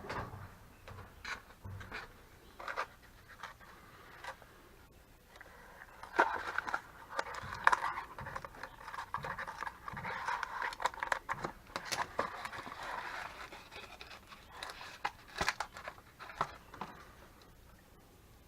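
Hand-work noises: scattered clicks and knocks, with a stretch of scratchy scraping and rasping through the middle.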